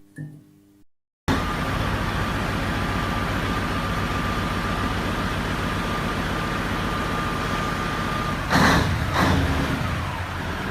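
Heavy truck running: a steady low drone and road noise with a thin high whine, starting abruptly about a second in after a short silence. Two loud bursts of noise come close together near the end.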